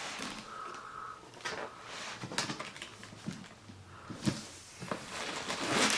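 Cardboard packaging being handled: soft rustling with scattered light clicks and knocks as the box's contents are lifted out, growing busier near the end.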